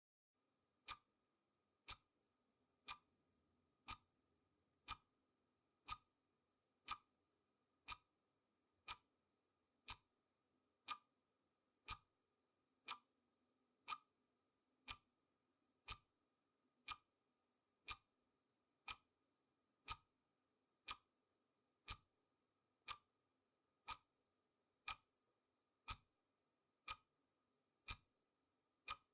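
Clock-tick sound effect marking off the seconds of a countdown: a single sharp tick once a second, evenly spaced, about twenty-nine ticks.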